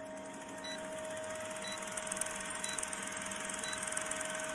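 Film-projector sound effect: a steady mechanical whirr with hiss and a constant hum, with a short faint beep about once a second marking a film countdown.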